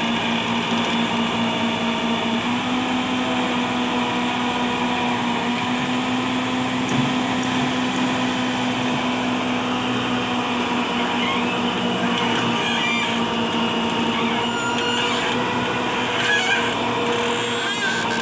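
Massey Ferguson 385 tractor's diesel engine running steadily with a constant drone while it drives the hydraulics of a tractor-mounted backhoe excavator that is digging.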